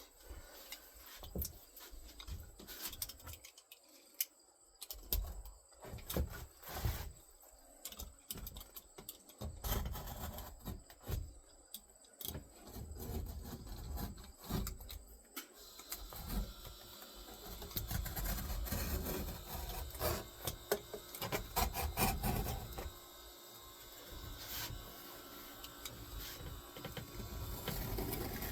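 Irregular taps, knocks and scraping from hand work on a wooden furniture dolly: tools and wood being handled, struck and rubbed.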